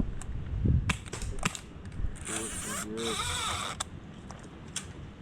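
Airsoft guns being test-fired: a few sharp single pops, and about two seconds in a second-and-a-half stretch of loud hissing noise.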